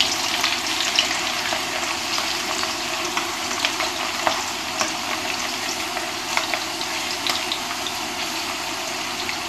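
Parboiled potato fingers deep-frying in hot vegetable oil: a steady sizzle with scattered sharp pops and ticks, as they are stirred with a metal spatula so they don't stick to the bottom of the pan.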